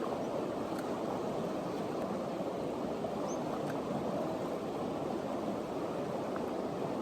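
Creek water flowing, a steady rush, with a couple of faint ticks.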